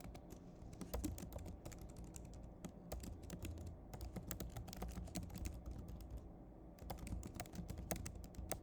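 Typing on a computer keyboard: irregular runs of quick key clicks, pausing briefly about two-thirds of the way through.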